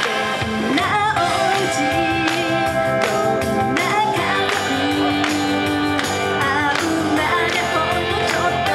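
Female idol-pop vocals sung into handheld microphones over a loud pre-recorded backing track with a steady beat, played through the stage PA.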